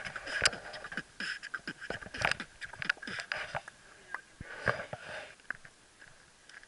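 Handling noise of an action camera being moved around by hand: irregular clicks, knocks and rustles, thinning out near the end.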